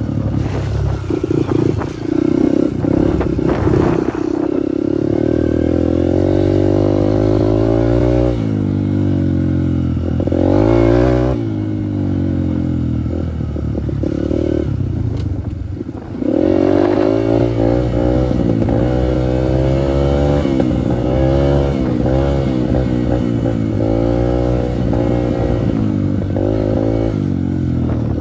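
Dirt bike engine running under load, its pitch climbing and falling again and again as the throttle is opened and closed, easing off briefly about 8, 12 and 16 seconds in before pulling again.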